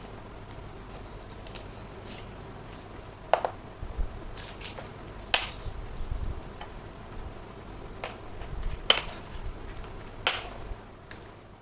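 Small plastic toy kitchen pieces being handled, giving irregular clicks and taps, a few of them sharper, over soft handling bumps.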